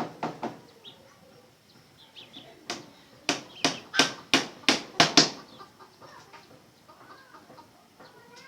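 A run of about seven sharp knocks, roughly three a second, in the middle, after a few softer knocks at the start. Red junglefowl cluck faintly afterwards.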